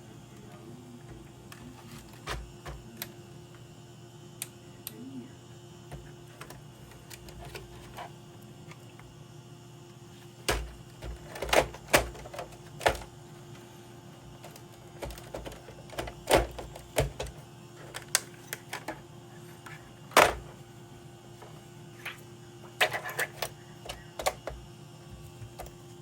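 Irregular clicks, taps and knocks of small tools and hard plastic or metal parts being handled on a repair bench, in scattered bunches, over a steady low hum.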